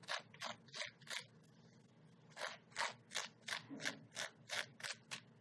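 A metal fork scraping the strands of cooked spaghetti squash out of its shell in quick, even strokes, about three a second, breaking off for about a second after the first few.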